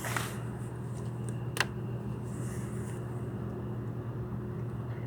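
Steady low machine hum with light rustling from handling, and one sharp click about a second and a half in, as a hand tool is handled.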